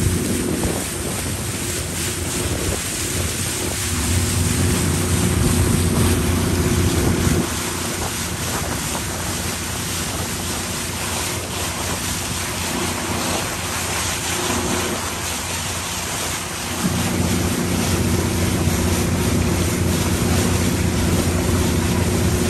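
A motorboat's engine runs steadily under wind buffeting the microphone and water rushing past the hull. The engine drops back for several seconds in the middle, then comes up louder again for the last few seconds.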